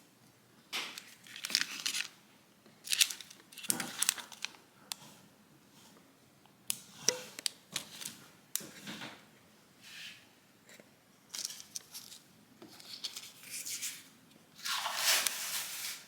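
Packaging being handled and torn open: irregular bursts of crinkling and tearing, with a longer, louder tear near the end.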